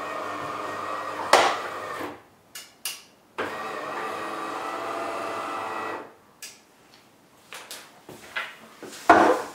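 DeLonghi Magnifica ESAM 4500 bean-to-cup coffee machine, running with its casing open while brewing a cappuccino. Its pump hums steadily in two spells of about two and a half seconds each, with a sharp click between them; the solenoid valves are somewhat loud with the housing off. Scattered clicks follow, then a loud knock near the end.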